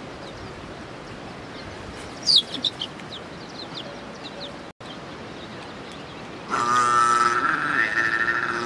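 A few high bird chirps about two seconds in, then near the end a farm animal gives one loud, long call lasting over two seconds.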